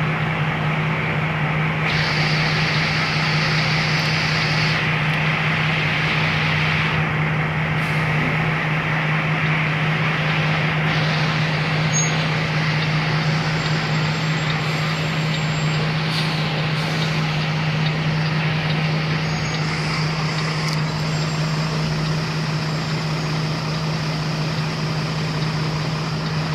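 Loaded heavy truck's diesel engine running steadily under way, a deep even hum heard from inside the cab.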